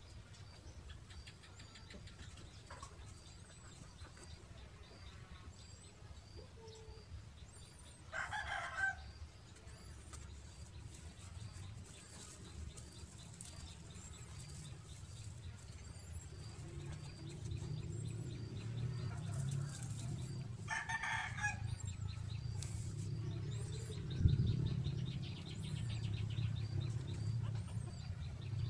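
A chicken calling twice, about twelve seconds apart, each call around a second long, over a low rumble that grows louder in the second half with a single thump near the end.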